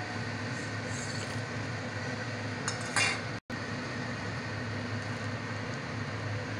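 A small steel bowl clinking against a metal cooking pan as chopped nuts are tipped in: a light tap about a second in and a louder clink about three seconds in, over a steady background hum.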